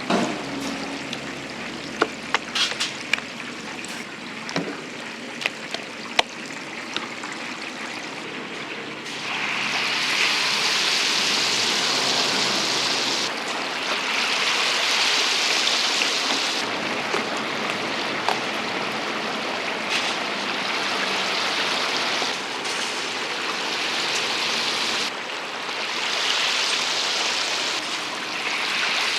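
Food deep-frying in hot oil, sizzling. For the first nine seconds the sizzle is quieter, with a few sharp clicks; then it turns into a loud, dense hiss whose level shifts abruptly every few seconds.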